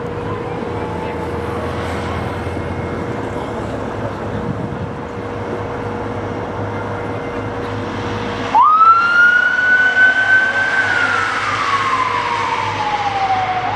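Electronic police siren on a Ford Police Interceptor Utility switched on suddenly about two-thirds of the way in: one wail that rises quickly, holds, then slowly falls and starts rising again near the end. Before it there is only a steady drone with a faint steady tone.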